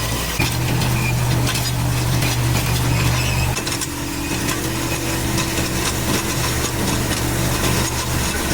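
Mini crawler skid steer loader's engine running steadily, with scattered metallic clicks. The engine note shifts about three and a half seconds in.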